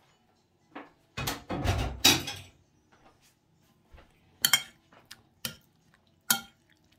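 Metal spoon and fork scraping and clinking against a ceramic plate while tossing a wet canned-fish salad: a longer clattering stretch about a second in, then a few separate sharp clinks.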